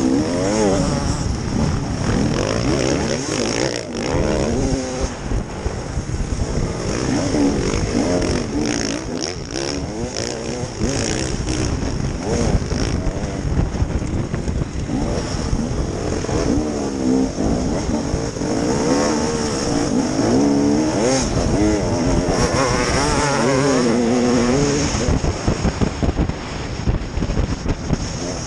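Two-stroke enduro motorcycle engine revving up and down continuously as the rider accelerates and shifts through turns, with other dirt bikes running close by.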